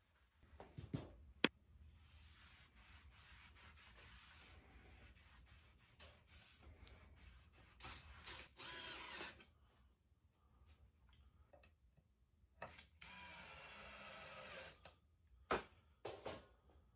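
Faint rubbing of a wax pad on a wooden butcher block, then a cordless drill run in two short bursts, about eight and thirteen seconds in, fastening feet to the board. A sharp click about a second and a half in, and a couple of light knocks near the end.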